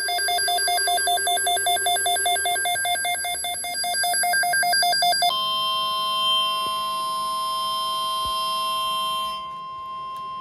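Electronic emergency alert tones announcing a severe thunderstorm watch: a rapidly warbling two-pitch alarm for about five seconds, then a steady high alert tone held almost to the end.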